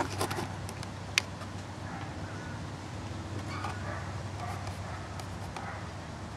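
Quiet outdoor ambience: a steady low background rumble with faint, scattered distant bird calls, and a single sharp click about a second in.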